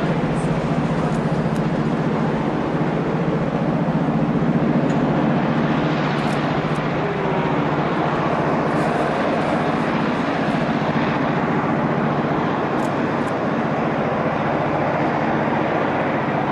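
EMD SD38 diesel locomotive with a 16-cylinder two-stroke engine, running steadily under load as a continuous low drone.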